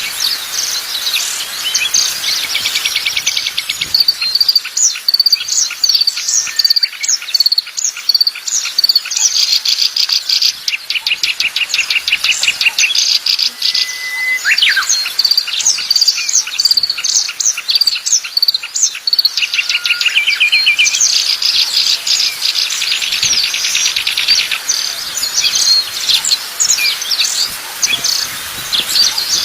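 Small wild songbirds singing together: a dense, unbroken stream of rapid high chirps and fast trills, with a short steady whistle about halfway through.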